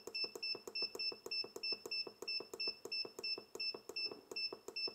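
Control panel of a Chilly Moose Big Buck 12-volt portable fridge/freezer beeping with each press of its down button, about four short, high beeps a second, as the set temperature is stepped down toward its lowest setting.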